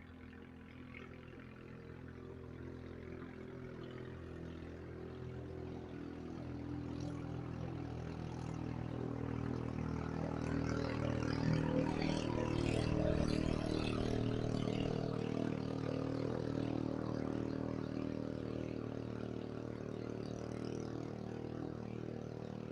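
Engine of a passing river boat running steadily, growing louder to a peak about halfway through and then fading a little.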